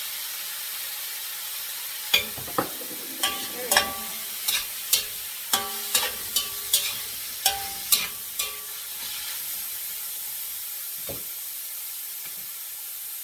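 Chicken and mixed vegetables sizzling in a frying pan with a steady hiss, as a spatula stirs them and knocks against the pan about a dozen times, with short ringing clanks, between about two and eight seconds in, and once more later.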